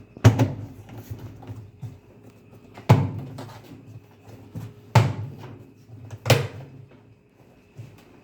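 Washing machine cover being pressed and knocked into place: four loud knocks a couple of seconds apart, with lighter clicks and rattles between.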